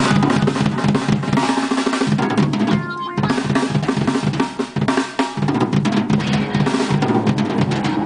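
Acoustic drum kit played hard in a fast, busy beat, with snare, bass drum and cymbal hits.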